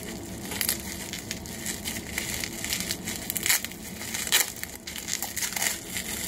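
Packing material crinkling and crackling as a small package is unwrapped by hand, with a few sharper crackles about half a second, three and a half seconds and four seconds in.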